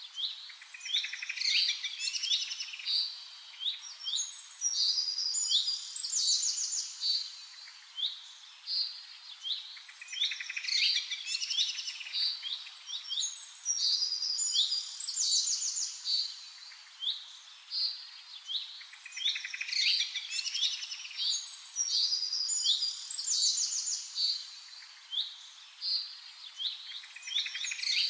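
Birds chirping and singing in quick high chirps and trills, the same stretch of song repeating about every nine seconds.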